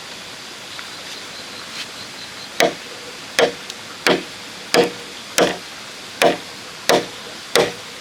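Repeated chopping strikes into bamboo, starting a little over two seconds in and falling about one every 0.7 seconds, eight in all. Each strike leaves a brief ring.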